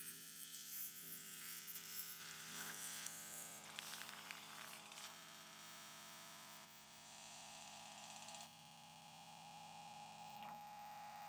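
Faint rustling and crinkling of tent fabric as it is unfolded and spread out over a groundsheet, over a low steady hiss. A faint steady tone comes in near the end.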